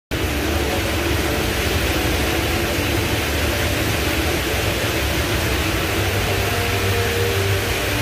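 The Rain Vortex, the indoor waterfall at Jewel Changi Airport, pouring down in a steady, unbroken rush of falling water.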